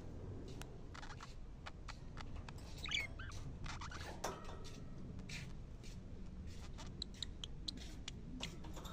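Budgerigars chattering: a steady stream of short clicks and chirps, with brief warbled glides about three and four seconds in.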